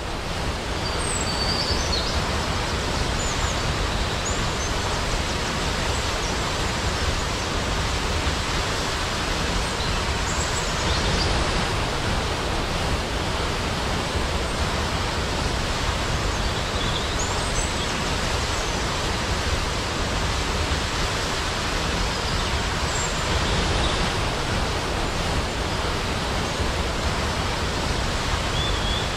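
Steady rushing roar of a large waterfall, with a few brief high bird chirps now and then.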